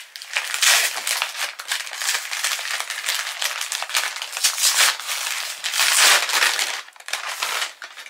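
Book packaging being unwrapped and crumpled by hand: continuous, uneven crinkling that eases off near the end.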